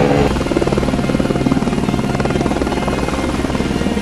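Helicopter flying close by, its rotor chopping in rapid, even beats over a steady low engine hum.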